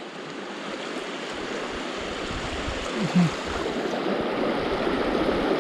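River rapids rushing around a kayak as it runs through them, the steady rush of water growing slowly louder.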